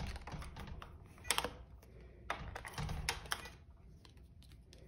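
Handling noise: a few irregular sharp clicks and lighter taps over a low rumble.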